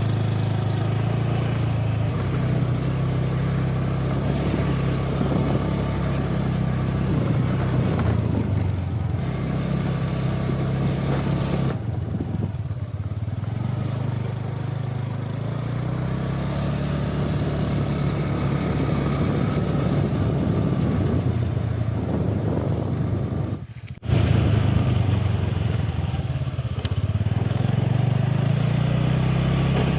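Small vehicle engine running steadily on the move. It drops out for a moment about three quarters of the way through, then carries on.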